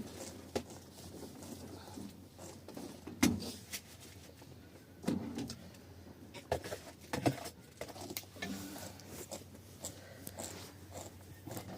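Scattered knocks and clatter of objects being handled, the loudest about three seconds in.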